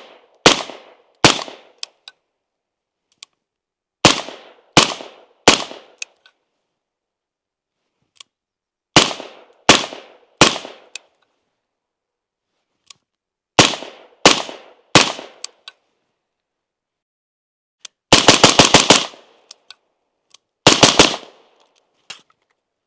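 Suppressed AR-15 carbine (Noveske 10.5-inch upper with an Irregular Defense Hesychia SIXK suppressor) firing. Shots come in groups of three, about 0.7 s apart, each with a short echo tail. Then comes a fast string of about seven shots in under a second, and a quick string of three near the end. Heard from a microphone on the shooter's chest.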